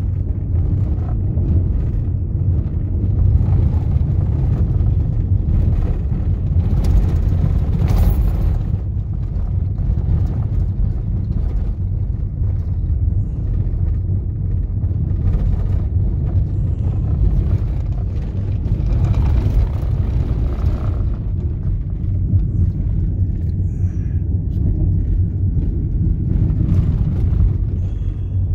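Steady low rumble of a vehicle driving on a gravel dirt road, engine and tyre noise heard from inside the cabin. Twice, a brief stretch of louder, sharper noise rises over the rumble.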